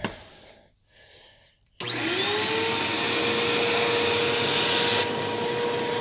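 Sanitaire SL4110A upright vacuum cleaner switched on a little under two seconds in. The motor spins up with a rising whine, then settles into a steady running drone with a high hiss. About a second before the end the hiss drops and the sound gets a little quieter.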